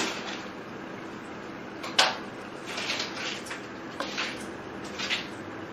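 Light clicks and taps of hands and a pin-bone tweezer working on a wooden cutting board while pulling pin bones from a raw salmon fillet, the sharpest tap about two seconds in. A faint steady hum runs underneath.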